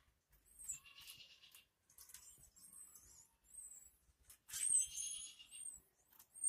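Small pet birds chirping: a string of short, high, bending chirps, with a louder burst of calls about four and a half seconds in and again at the end.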